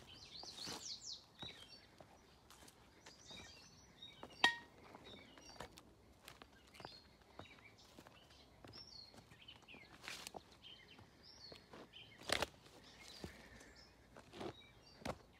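Footsteps on gravel ballast and old wooden railway ties through weeds, a scatter of sharp clicks, the loudest about four and a half seconds in. Birds chirp and sing in the background.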